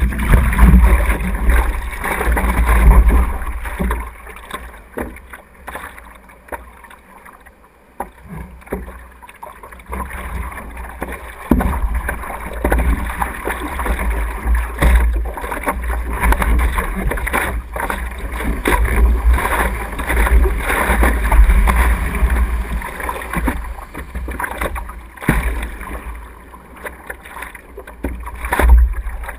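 Seawater splashing and sloshing against a surfboard and the camera mounted on its nose as the surfer paddles and sits on the board, with a heavy low rumble of water and wind buffeting the microphone. It is loudest in the first few seconds, quieter for a stretch after that, then picks up again with short splashes.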